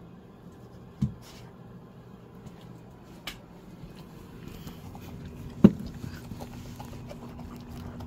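A Dalmatian eating from an enamel food bowl: a sharp knock of the bowl about two-thirds through, then small irregular clicks and crunches as it eats the kibble and toppings. Two lighter knocks come earlier.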